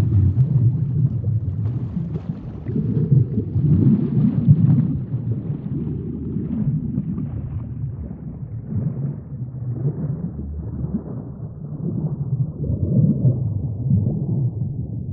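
Deep, muffled underwater sea ambience: a continuous low rumbling wash that swells and ebbs and grows duller toward the end.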